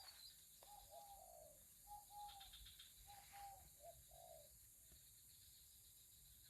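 A bird cooing: faint, repeated phrases, each a held note dropping to lower sliding notes, about one phrase a second, stopping about four and a half seconds in.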